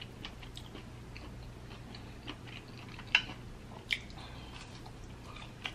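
Faint chewing and wet mouth clicks of a person eating ribeye steak, with two sharper clicks a little after three and about four seconds in.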